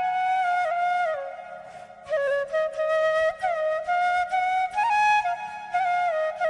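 Background music: a solo flute melody with gliding, ornamented notes, dipping briefly about one and a half to two seconds in before carrying on.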